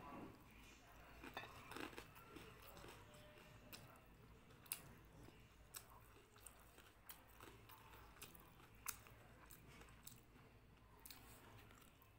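Faint close-up chewing of a mouthful of rice and curry, with sharp wet mouth clicks scattered through, about one a second.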